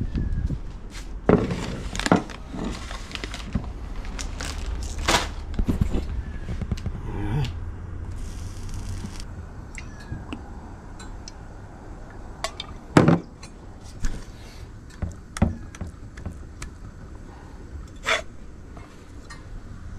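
Scattered knocks, clinks and scrapes of kitchen handling on a wooden chopping board: a glass oil bottle and a metal spatula being picked up, set down and worked around tuna burger patties. A brief hiss about eight seconds in.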